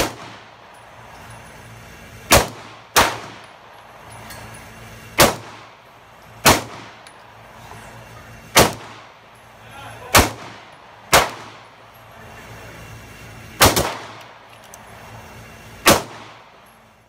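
Smith & Wesson M&P9 9mm pistol fired in slow single shots, about ten in all, one to two and a half seconds apart, each shot followed by a brief echo.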